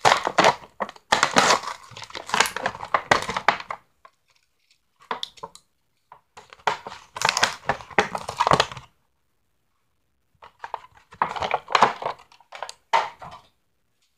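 A Hot Wheels Monster Jam toy truck's blister-card packaging being torn and crinkled open by hand, in several bursts of tearing and crackling plastic and card with short pauses between them.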